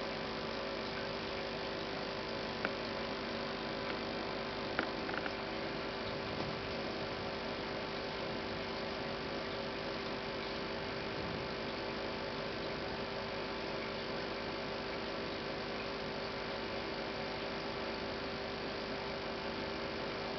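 Steady electrical hum, several tones held constant over an even hiss, with a few faint clicks in the first five seconds.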